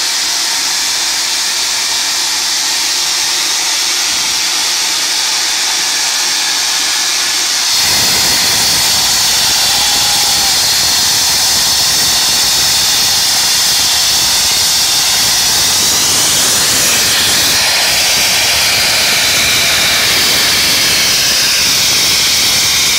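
Union Pacific No. 844 steam locomotive's cylinder drain cocks blowing off steam in a steady hiss, which jumps suddenly to a louder, fuller blast about eight seconds in.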